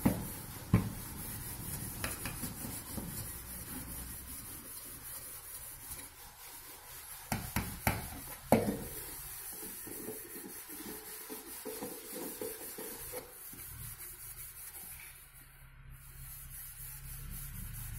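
A sponge scrubbing an aluminium saucepan with a soap-and-bicarbonate cleaning paste: a steady rough rubbing. A few sharp knocks stand out, one about a second in and three in quick succession around the middle.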